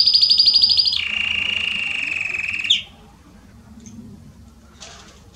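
Belgian canary singing: a rapid, high trill that drops to a lower trill about a second in, then breaks off sharply about halfway through.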